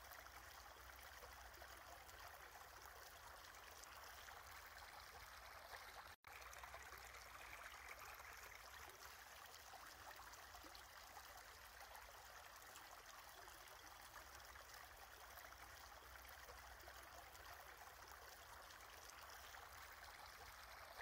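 Near silence: a faint steady hiss, cut off for an instant about six seconds in.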